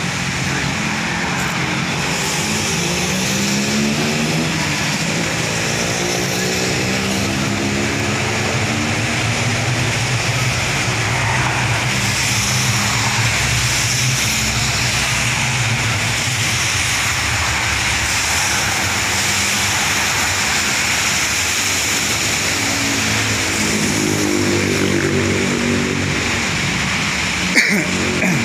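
Steady rain and wind noise over a wet road, with a steady low drone underneath that slowly wavers in pitch twice, like traffic passing. A single short click near the end.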